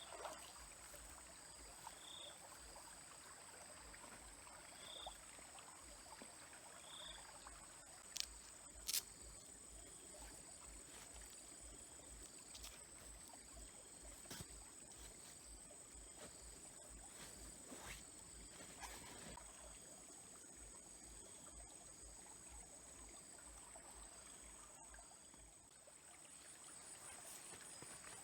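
A small stream trickling faintly under a continuous high, steady insect trill. Four short high chirps come about two seconds apart in the first seven seconds, and two sharp clicks about eight and nine seconds in are the loudest sounds.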